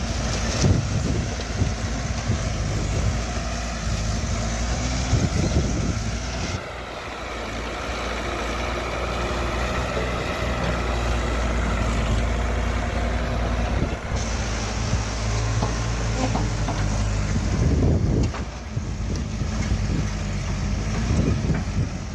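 Heavy diesel engine running steadily, as on a working backhoe loader, with a few knocks. The sound changes abruptly about six and a half seconds in and again around fourteen seconds.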